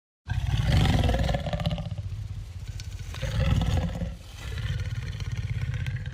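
Designed monster roar for a giant boar creature, layered from animal sounds such as boar, bear and big-cat growls. It starts abruptly about a quarter second in and goes on as a rough, rapidly pulsing growl that swells and eases several times.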